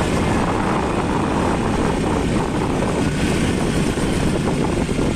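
A motor vehicle's engine running steadily, with wind rushing and buffeting over the microphone as the vehicle moves along the road.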